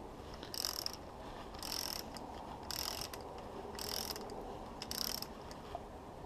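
Ratchet wrench on a long extension clicking through five short ratcheting strokes, about one a second, while bolts on an outboard's lower unit are snugged down firm but not over-tightened.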